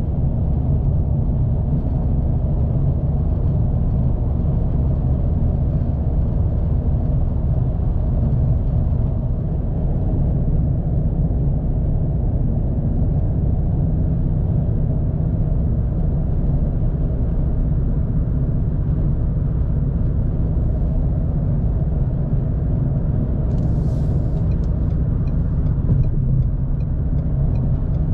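Steady road and engine rumble heard inside a car's cabin while cruising at highway speed, with a brief hiss near the end.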